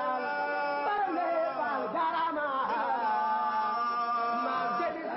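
Baye Fall guardians chanting the name of Ibra Fall, a vocal chant of long held notes that slide slowly in pitch.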